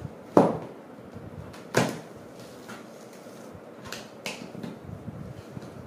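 Cardboard product box being handled and opened by hand: two sharp knocks in the first two seconds, then a few lighter clicks and taps.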